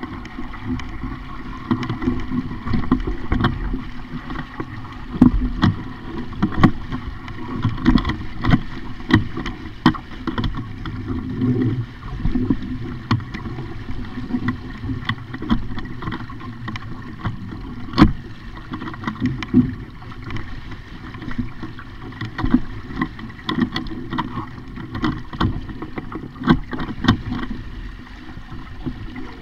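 Water splashing against a sailing dinghy's hull, with frequent irregular knocks and clatters from the boat; the sharpest knock comes about two-thirds of the way through.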